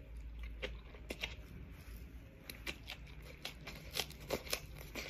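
Faint, irregular crunches and crackles from a packaged beef and vegetable wrap and its wrapper being handled at close range.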